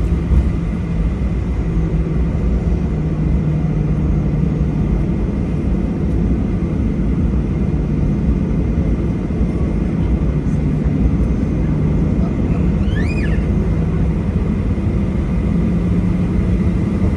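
Boeing 737-800 cabin noise during taxi, heard from a window seat over the wing: a steady low rumble with an even hum from the CFM56-7B jet engines, not changing in loudness. A short high squeak rises and falls about 13 seconds in.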